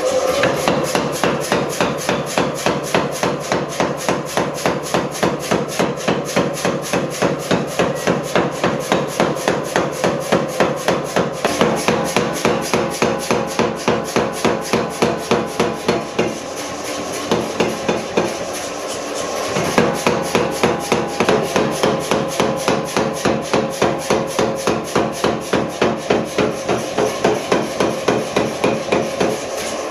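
Power hammer pounding a red-hot steel sword blade in rapid, even blows, several a second, as the blade is forged. A steady hum runs underneath, and the blows soften for a few seconds past the middle.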